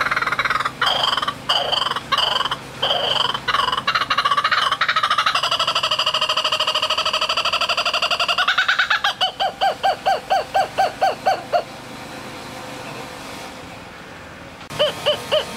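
Laughing kookaburra calling: harsh chuckling notes build into a rapid rolling laugh, then slow into evenly spaced 'ha' notes, about five a second, that stop about three-quarters of the way through. The pulsed laughing starts again near the end.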